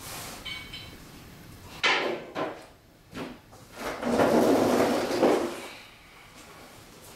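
A few sharp knocks and clunks of metal, then a mechanic's creeper rolling on its casters across a concrete floor for about a second and a half.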